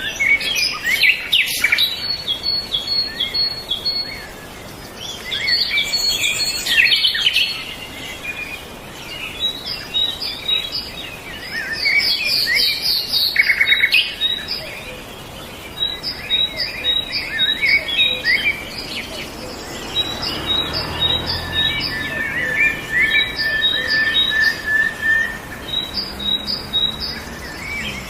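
Several songbirds singing and chirping at once, with overlapping calls and runs of quick, repeated high notes.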